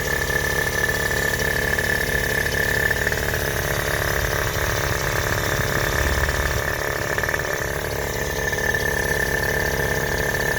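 Datsun L20B four-cylinder engine, fitted with a newly installed Weber 32/36 carburetor, idling steadily while it warms up, with a steady high whine over the running.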